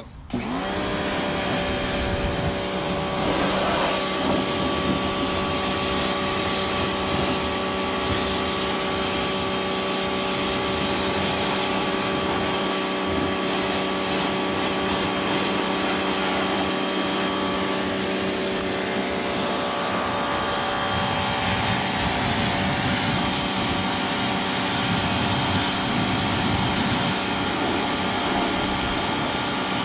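Pressure washer running steadily, its pump motor humming under the hiss of the high-pressure water jet spraying against a side-by-side's body panels. It kicks in right at the start.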